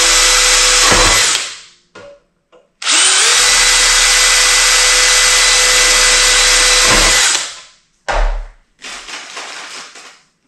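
DeWalt cordless drill boring through thin sheet metal in two runs: the first winds down about a second in, the second spins up about three seconds in, runs steadily with a high whine for about four seconds and stops. A knock follows about eight seconds in.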